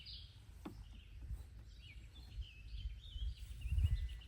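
Birds singing outdoors in short warbling phrases, over a low rumble, with one sharp click about half a second in.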